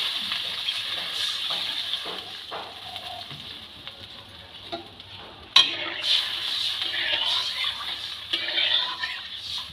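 Water hitting hot oil and spices in an aluminium kadai, hissing and bubbling and dying away over the first few seconds. About five and a half seconds in, a metal spatula clinks sharply against the pan, then stirs and scrapes through the watery curry.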